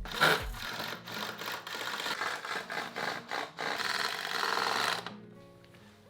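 A power drill driving screws into wood in several short runs over about five seconds, then stopping.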